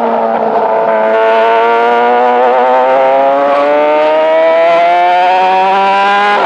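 Yamaha YZF-R6 sportbike's inline-four engine under hard acceleration. Its pitch climbs steadily through the revs, then drops sharply near the end as it shifts up a gear.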